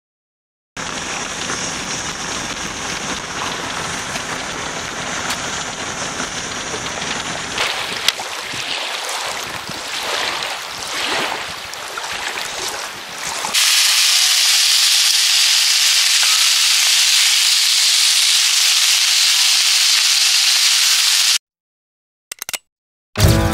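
A steady rushing noise that changes about halfway through to a brighter, even hiss, which cuts off suddenly near the end.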